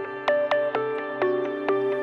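Background music: a soft, ambient electronic track of plucked notes, about two a second, over a held low tone.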